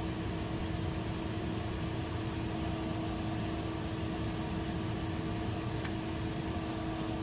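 Steady machinery hum with a constant mid-pitched tone over a noise haze, and a single faint click about six seconds in.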